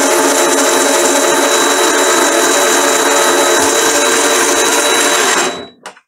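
Chinese-design mini metal lathe running under power, its motor and gear train turning a brass workpiece in the chuck during a light cut, with a steady high whine over a lower hum. It stops a little before the end, followed by a brief knock.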